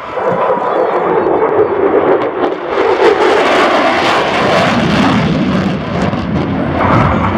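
F-16 fighter jet flying past, its engine noise swelling to its loudest after a few seconds and dropping in pitch as it goes by.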